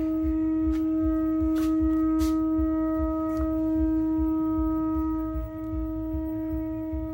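Steady pitched test tone with overtones from the 1969 Zenith color television's speaker, reproducing the audio tone carried on the Sencore video analyzer's RF test signal, which shows the tuner is picking the signal up; the tone dips briefly about five seconds in. A low fluttering rumble runs underneath.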